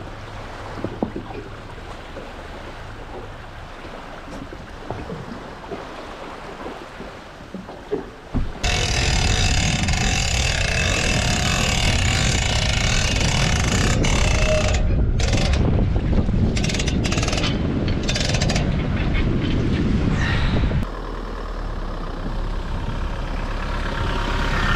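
Toyota HiLux ute running as it hauls a boat trailer out of shallow sea water onto sand. About a third of the way in, a loud rush of splashing water right at the microphone takes over for some twelve seconds, then the engine is heard idling more quietly.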